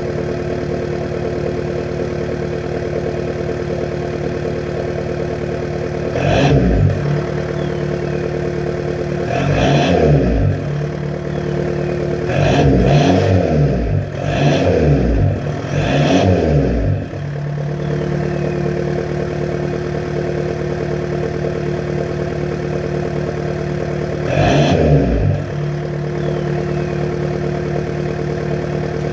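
A 2006 VW Jetta's 1.9 TDI BRM four-cylinder diesel, cold, running through a catback exhaust with muffler and resonator deleted. It idles steadily and is revved six times, to no more than about 2000 rpm, each rev rising and dropping back to idle; three revs come close together in the middle.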